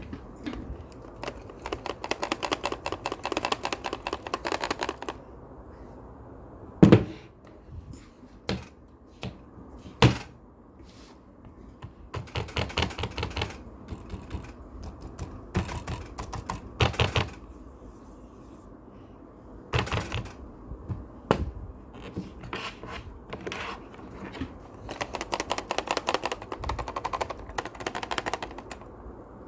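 A loose hard drive rattling inside a Razer Blade 15 laptop: several bursts of fast clicking clatter, each a second or a few seconds long, with a few single louder knocks between them. The rattle is the sign that the drive has come loose in its mount.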